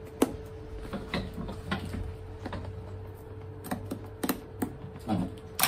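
Irregular clicks and ticks of a hand tool picking and prying at the edge of a cowboy boot's glued-on sole, which is holding fast. A steady hum runs underneath.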